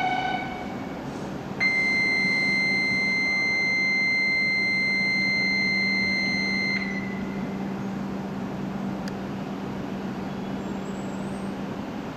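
Station platform departure buzzer: one steady high electronic tone that starts abruptly, holds for about five seconds and cuts off. A low steady hum continues as the E7 series Shinkansen starts to pull away.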